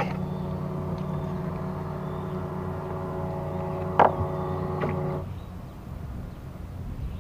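A steady hum of several held pitches that cuts off abruptly about five seconds in, with a few sharp clicks at the start and around four seconds in; a low rumble remains after the cut-off.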